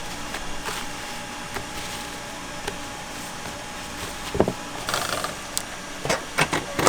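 Scattered knocks and clatter of work at a fish-cutting counter over a steady machine hum. The knocks come more often and louder in the second half.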